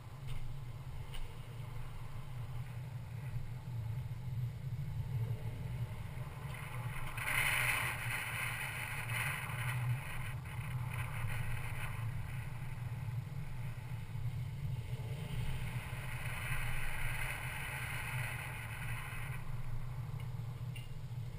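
Low steady rumble of a Mercedes-Benz C250 Coupe driving slowly. A hiss swells twice over it, for several seconds each time, once near the middle and once toward the end.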